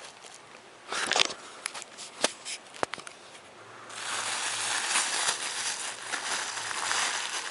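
Packaging being handled and pulled open by hand: scattered crackles and clicks, then about four seconds in a steady crinkling and rustling of wrapping that runs on.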